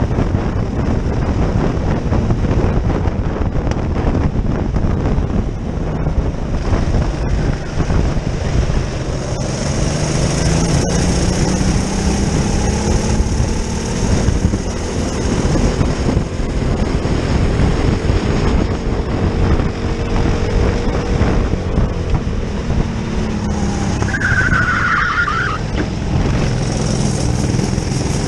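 Racing kart engine heard from the driver's seat, rising in pitch as it accelerates and dropping again past twenty seconds in. A short high squeal comes about 24 seconds in.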